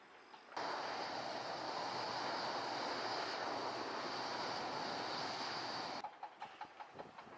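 AG600M amphibious aircraft's four turboprop engines running steadily on the runway, a steady roar with a high whine. The sound cuts in sharply about half a second in and drops away abruptly about six seconds in to a quieter stretch of faint ticking.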